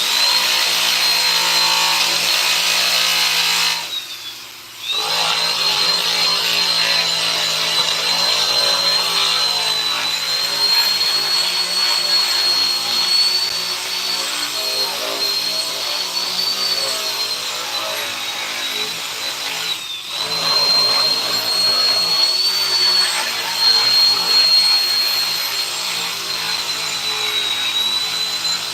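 Electric power tool running while it works wood, with a steady high motor whine that wavers slightly under load. It drops away for about a second about four seconds in and dips briefly near twenty seconds.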